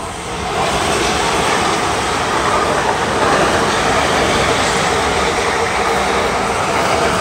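Class 450 Desiro third-rail electric multiple unit passing close by at speed: a steady rushing of wheels on the rails and coaches going by, building up within the first second and then holding.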